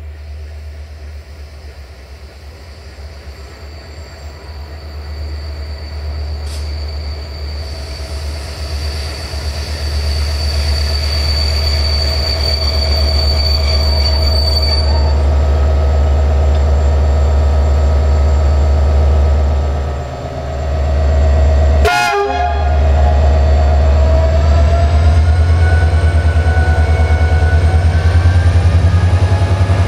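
CFR diesel-electric locomotive 65-0920-2, GM-modernised, hauling an express train: a deep steady engine drone that grows louder, with a thin high whine from about 4 to 15 s in. About 22 s in there is a short horn blast, after which the engine note rises as the locomotive powers up.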